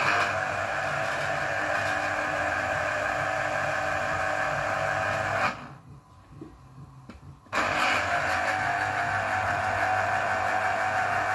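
Small electric citrus juicer's motor running as lemon halves are pressed onto its spinning reamer: a steady hum for about five and a half seconds, a pause of about two seconds, then running again.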